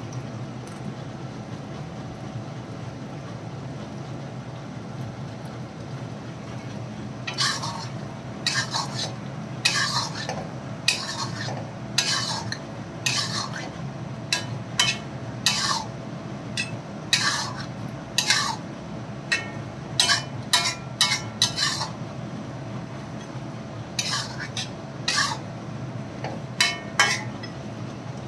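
Metal spatula scraping and stirring around an iron karahi as chicken is cooked in cream. After a stretch of steady low background noise, the scrapes start about seven seconds in and come roughly once a second, with a quicker run of strokes about two-thirds of the way through.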